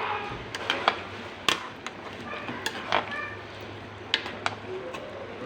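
Kitchen utensils clinking and knocking against cookware in irregular sharp clicks, as when cooking and stirring, with faint voices in the background.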